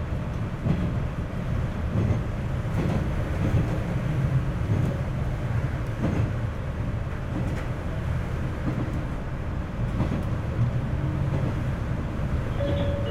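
Tosa Kuroshio Railway 9640 series diesel railcar running at speed, heard from inside the cab. A steady low engine and running drone is broken by sharp wheel clicks over the rail joints every second or so.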